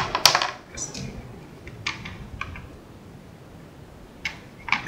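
Small plastic clicks and light knocks of a 9-volt battery being handled and fitted into a multimeter's battery compartment: a quick cluster at the start, the loudest, then a few scattered clicks, with more near the end.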